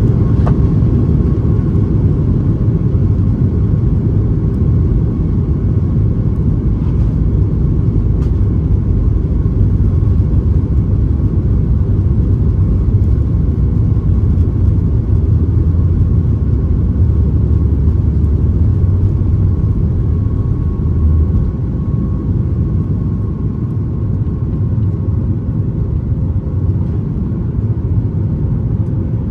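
Boeing 737 MAX 8 cabin noise with its CFM LEAP-1B engines running: a loud, steady low roar of engine and airflow, with a faint steady hum above it. The roar eases slightly about two-thirds of the way through.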